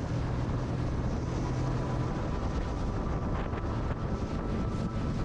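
Motorboat running across the water: a steady engine drone with wind buffeting the microphone.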